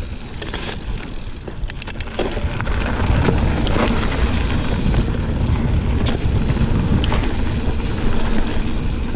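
Giant Fathom 29 mountain bike ridden along a dirt trail: tyres rolling over the ground, with sharp clicks and rattles from the bike, under a heavy wind rumble on the microphone. It grows louder about three seconds in.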